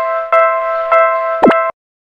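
Railroad crossing warning bell ringing in a steady clanging rhythm of a little under two strikes a second. A short, loud falling sound comes near the end, and then the bell cuts off suddenly as the crossing signal shuts off.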